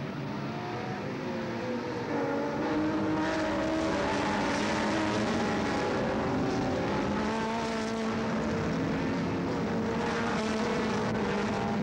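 A pack of production saloon racing cars passing at full throttle, many engines revving and changing pitch over one another. It gets louder about two seconds in as the bunch goes by.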